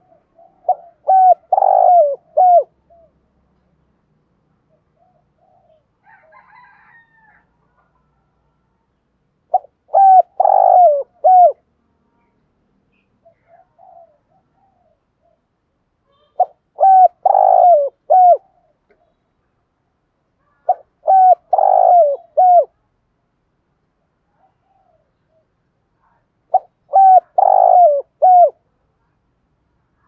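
Spotted dove cooing in five separate phrases, each a short run of low notes lasting about two seconds, repeated every five to six seconds. It is the urging coo (gù thúc) that keepers play as a decoy call to stir up other doves.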